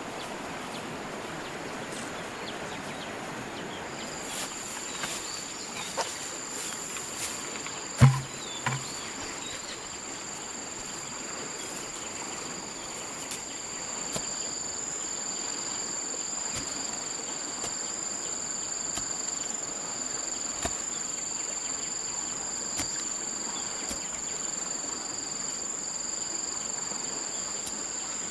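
A steady, high-pitched insect trill starts about four seconds in and holds over a faint outdoor hiss. A sharp knock with a short dull thud comes about eight seconds in, followed by a second, smaller one.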